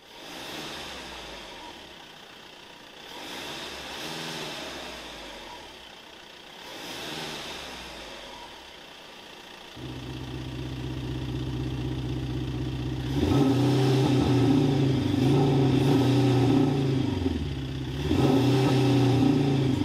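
Engine sound of a VW T6.1 van fitted with a Maxhaust active sound system, which plays a simulated engine note through speakers. The first half is quieter, with two brief revs. About halfway through, a much louder, steady pitched engine note cuts in suddenly, and later it grows louder again as it revs up and down.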